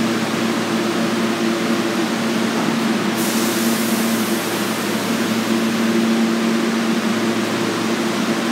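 Steady machinery hum in a subway station: two low tones held under an even hiss, with no distinct events.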